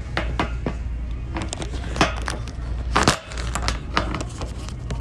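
Handling noise: about a dozen irregular sharp clicks and knocks, the loudest about two and three seconds in, over a steady low hum.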